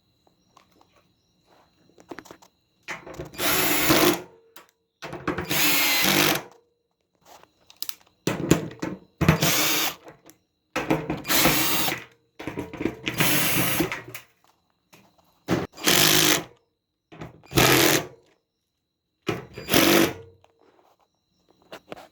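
Power drill driving screws in short bursts: about nine runs of half a second to a second and a half each, with short pauses between them.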